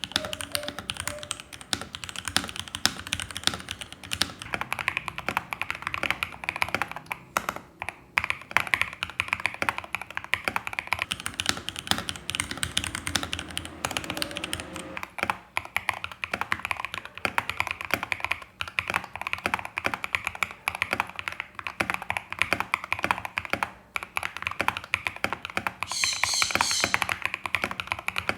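Keychron K12 mechanical keyboard with Akko ASA-profile keycaps being typed on steadily in a typing sound test, keys clacking several times a second with a few short pauses. A brief high shimmering sound comes in near the end.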